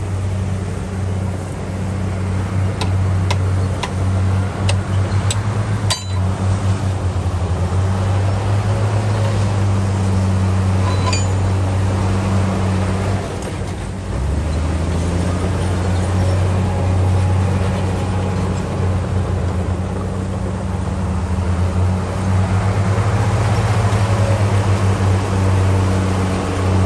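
Bulldozer's diesel engine running with a steady low drone, its pitch dropping briefly about halfway through, with a few sharp metallic clinks around three to six seconds in.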